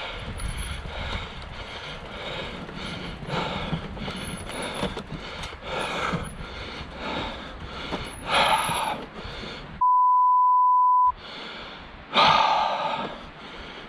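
Mountain bike rolling along a wooden-slatted boardwalk, tyres drumming over the slats with a running rattle. About ten seconds in, the ride sound cuts out for a steady 1 kHz bleep tone just over a second long, the loudest sound, the kind edited in to censor a word.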